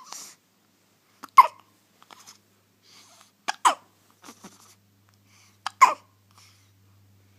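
Newborn baby hiccuping three times, about two seconds apart, each hiccup a sharp catch with a brief squeaky note that falls in pitch.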